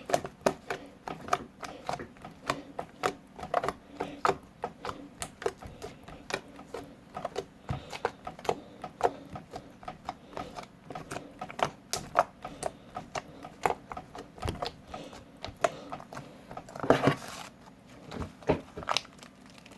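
Homemade slime being squeezed and kneaded by hand, making rapid irregular clicking and popping, a few pops a second, with a louder burst of crackling near the end.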